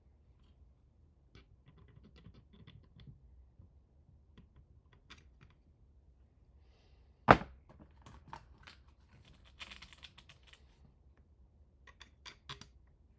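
Small parts being handled and fitted by hand: scattered light clicks and taps, one sharp knock about seven seconds in, and a quick run of clicks near the end.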